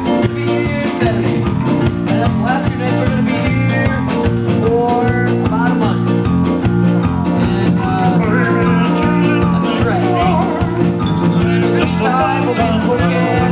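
Live rock band playing filler music while the guitarist changes guitars, with a steady drum beat and bass.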